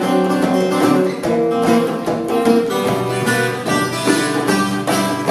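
Acoustic blues band playing: a strummed acoustic guitar under held harmonica and metal-kazoo (kazobo) notes, with a djembe tapped by hand.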